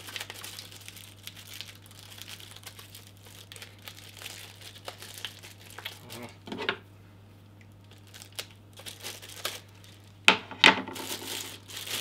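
Clear plastic packaging bag crinkling and rustling as the cable tester unit is handled and unwrapped, with two sharp, louder crackles a little before the end.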